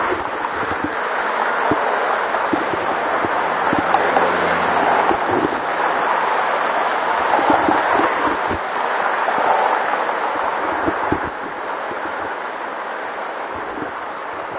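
Wind buffeting the microphone of a camera mounted on a moving bicycle, over the sound of city traffic passing close by. The noise eases a little after about eleven seconds.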